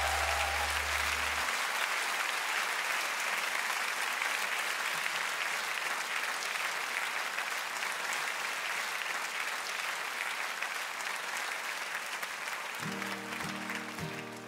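Audience applauding after a song, while a low held note from the stage cuts off about a second and a half in. Near the end an acoustic guitar starts strumming chords.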